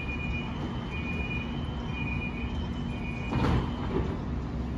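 Siemens S70 light rail train standing at the platform, its door warning beeping at one steady pitch about once a second, then stopping, followed by a loud thump about three and a half seconds in as the doors close. A steady low hum from the standing train runs underneath.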